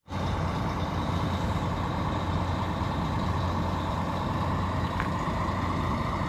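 Steady low rumble of an idling motor vehicle engine, with one short click about five seconds in.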